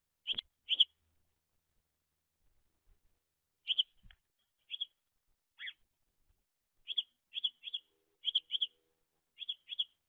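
House sparrow chirping: about a dozen short, high chirps, often in quick pairs, with a pause of a few seconds after the first pair.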